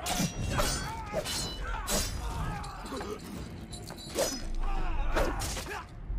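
Sword-fight sound effects: blades clashing and blows landing in quick succession, with men grunting and shouting, over a film score.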